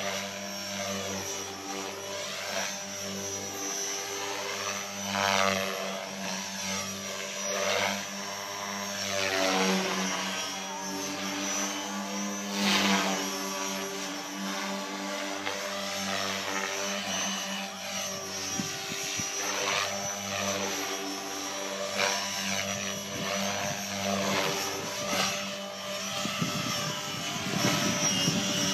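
Gaui X4 II electric RC helicopter in flight: a steady rotor drone with a motor whine, its pitch rising and falling again and again as it manoeuvres and passes by.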